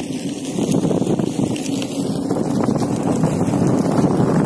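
Steady wind rumble buffeting the microphone of a handheld camera as it is carried along by a rider on a moving Inmotion V5F electric unicycle, with faint small knocks scattered through it.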